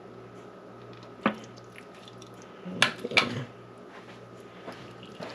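Wet squishing of raw chicken livers being pulled apart and trimmed with a knife, with a sharp click about a second in and a few louder clicks near the middle, over a faint steady hum.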